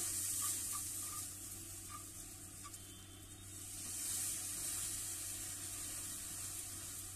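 Milk sizzling as it is poured in small amounts onto hot, ghee-roasted semolina in a pan, with a wooden spatula stirring through it. The sizzle is strong at the start, eases in the middle and swells again about four seconds in as more milk goes in.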